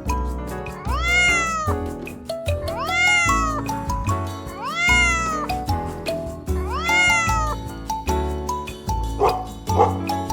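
A cat meowing four times, about two seconds apart, each call rising and then falling in pitch, over light background music with a steady beat.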